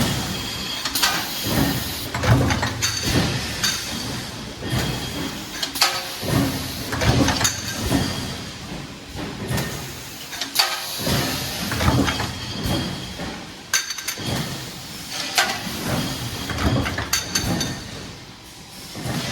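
Automatic stamping line at work: a pneumatic press and transfer manipulator making irregular metallic clanks and thumps, one every second or so.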